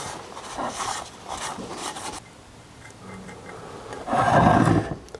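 A cloth rag rubbing and wiping an aluminium engine casing in irregular strokes, with louder rubbing and handling noise about four seconds in.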